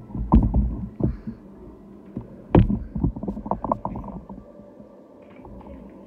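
Muffled low thumps and rubbing right up against a phone's microphone, in two bursts of about a second each: handling noise.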